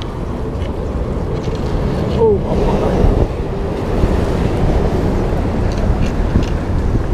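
Wind buffeting the camera microphone over a steady low rumble, with one brief falling squeak about two seconds in.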